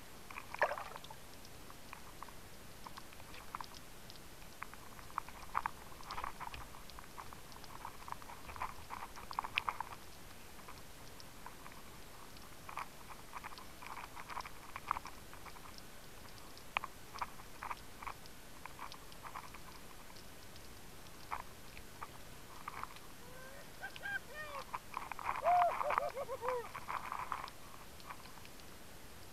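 Scattered clicks, knocks and crackles heard underwater through the camera housing, with a denser bubbling, gurgling spell about 24 seconds in.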